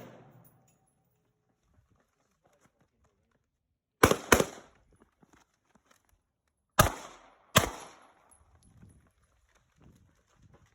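Two pairs of gunshots on a shooting range. The first pair is a quick double tap about four seconds in; the second pair comes nearly three seconds later, with its two shots a little further apart.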